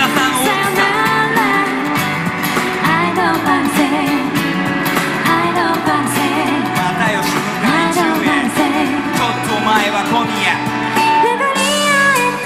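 A female vocalist sings a pop melody live, accompanied by acoustic guitar and a band.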